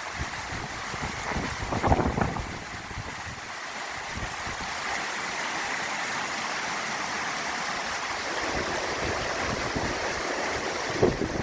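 Mountain valley stream running with a steady rush of water. Wind buffets the microphone briefly about two seconds in and again near the end.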